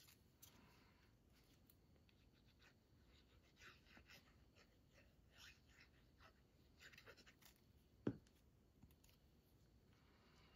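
Faint rustling and sliding of cardstock pieces being handled, with one light tap about eight seconds in.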